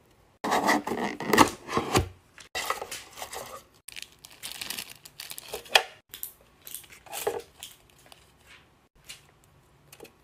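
Paper and plastic packaging crinkling and rustling in quick bursts as a plastic case is unpacked, loudest in the first couple of seconds. It thins out near the end to a few soft taps.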